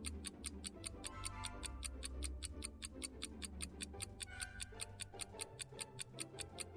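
Quiz countdown timer ticking fast and evenly, about five ticks a second, over quiet background music while the answer time runs. The ticking stops at the end.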